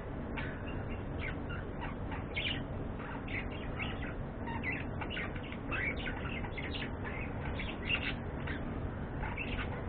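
Pet budgerigars (budgies) chirping and chattering in many short, quick calls that come irregularly, with no pauses.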